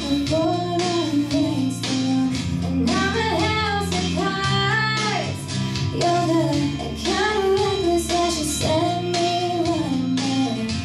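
A girl singing a melody into a microphone over a strummed guitar accompaniment with a steady bass.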